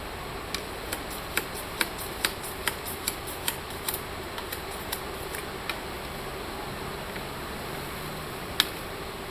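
Sharp clicks and snaps from a bamboo pole being worked by hand, as twigs and sheaths are picked off it. There are about two a second for the first half, then one louder snap near the end.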